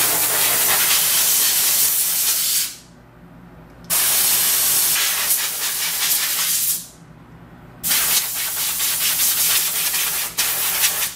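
Nitrogen blow gun blasting gas over a circuit board to dry it: three long hisses of about three seconds each, each cut off sharply when the trigger is released.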